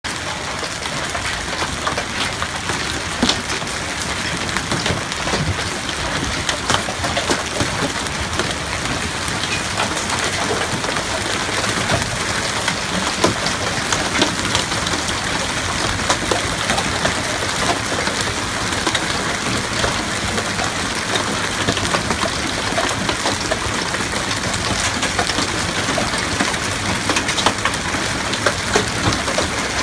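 Hailstones falling hard onto pavement, lawn and parked cars: a steady, dense clatter of countless small sharp impacts over a rushing hiss.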